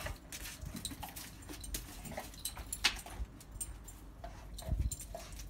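Vizsla pawing and scratching with its claws at brick paving, a run of short scrapes and clicks, with a few short whines.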